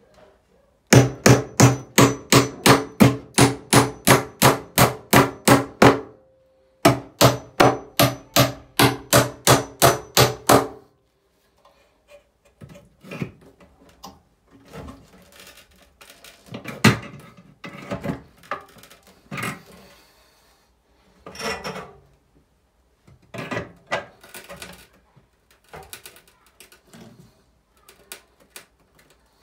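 Hammer striking the metal housing of a ceiling exhaust fan to knock it loose. There are two runs of quick, even blows, about four a second, each lasting several seconds, followed by scattered lighter knocks.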